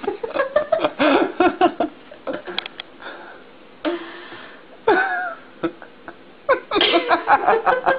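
Laughter and short vocal sounds in quick bursts, with a quieter stretch in the middle and a falling pitched call about five seconds in, on thin, muffled home-video sound.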